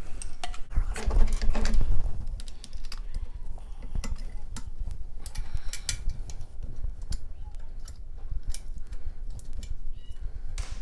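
Hands handling parts on a steel dirt-bike frame, making scattered small clicks, taps and rubbing as a plastic spacer and a throttle controller are fitted. A louder, heavier stretch of handling noise comes from about half a second to two seconds in.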